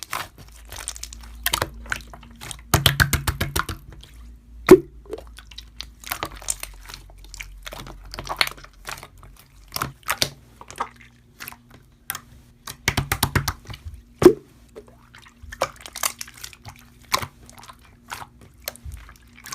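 Slime being squeezed and poked by hand, making wet clicks, squishes and pops. Quick runs of crackling clicks come about three seconds in and again around thirteen seconds, with two louder single pops.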